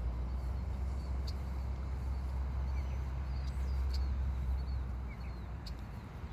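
Low steady rumble of road traffic that eases off about five seconds in. Over it come a few faint, short, high bird chirps and some light clicks.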